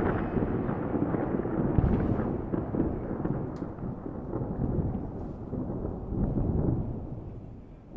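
Dense, deep rumbling noise like rolling thunder, with a few faint crackles, fading away near the end.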